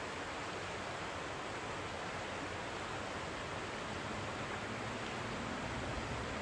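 A river flowing, a steady rushing noise with no breaks.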